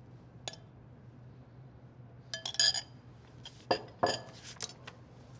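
Metal spoon clinking against a small glass bowl, with dishware knocking on the worktop: one sharp clink about half a second in, a quick run of ringing clinks about halfway, then a few knocks near the end.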